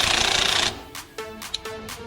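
Impact wrench hammering on a strut bolt, stopping abruptly under a second in, then background music.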